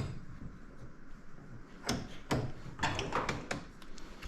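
A few sharp clicks and knocks of a screwdriver working a tiny retaining ring into a Fox 40 fork's internals, coming in two small clusters about two and three seconds in.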